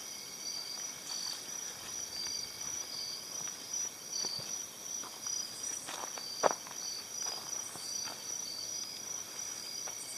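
Crickets and other night insects chirping together: a steady high trill with a pulsing chirp repeating beneath it. A few faint clicks, the sharpest about six and a half seconds in.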